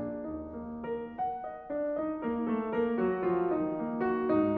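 Background piano music, a melody of notes and chords changing every half second or so.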